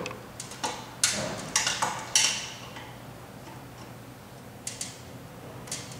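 Clicks and clunks of the line striper's steel handlebar and front-wheel lift lever being worked to raise the front wheel: about six sharp knocks in the first two and a half seconds, then a few faint ticks.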